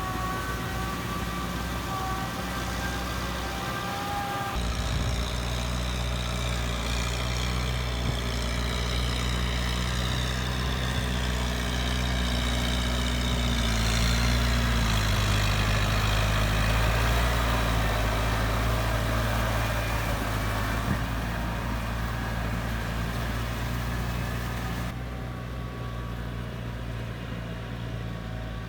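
Medium farm tractor's engine running steadily while ploughing, its note dropping a little about halfway through. The sound changes abruptly twice, a few seconds in and near the end.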